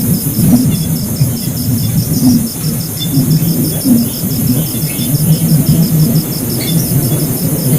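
An insect chirping in a fast, steady pulse over a loud, uneven low rumbling noise.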